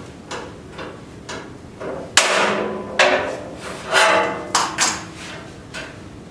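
Steel cover plate on the back of a wood stove being worked loose at its tabs: a few light metal clicks, then five loud, sharp metallic clanks with a brief ring, between about two and five seconds in.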